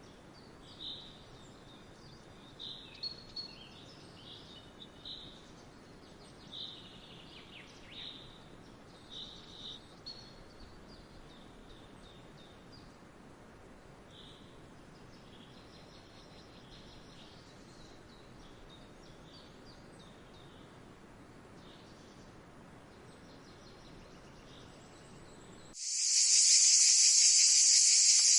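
Faint outdoor ambience with scattered short bird chirps through the first half. Near the end a loud, steady, high-pitched insect chorus cuts in suddenly.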